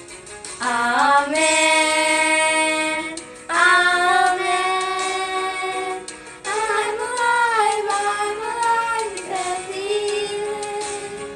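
Two young girls singing a worship song in long, drawn-out phrases, with held notes and sliding pitch; a new phrase begins about three and a half and again about six and a half seconds in.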